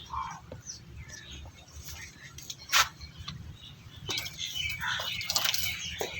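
Small birds chirping, many short high chirps that grow busier in the second half, with one sharp click or knock a little under three seconds in.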